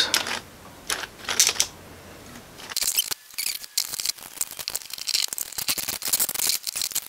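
Handling noise from a 3D-printed plastic watch frame assembly: a few sharp clicks and light knocks, then a dense run of small clicks and rattles from about three seconds in as the parts and steel pins are turned and fiddled with.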